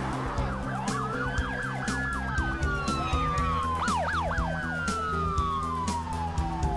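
Police car sirens: a slow wail that rises and then falls steadily in pitch, with quick up-and-down yelps about a second in and again about four seconds in, over background music.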